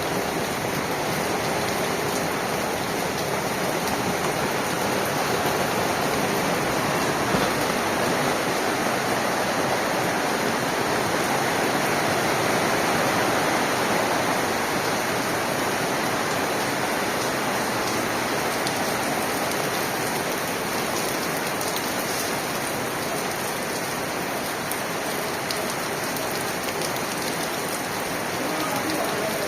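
Torrential rain pouring down, a dense, steady hiss that swells slightly midway.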